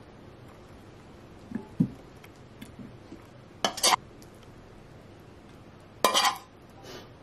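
Metal spoon clinking against dishes while sauce is spooned over a plate of rice: a couple of soft knocks, then brief sharp clinks about halfway through and again near the end.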